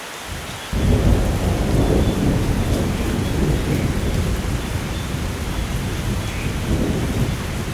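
Thunder rumbling over steady heavy rain: a deep roll breaks in suddenly less than a second in, stays loud and slowly fades, with another swell near the end.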